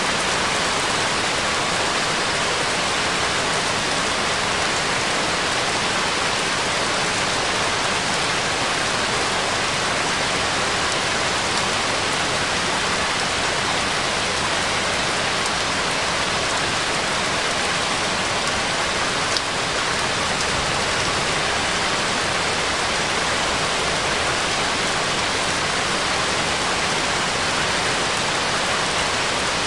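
Steady, unbroken rain sound with no music, the cover track of a subliminal affirmations recording.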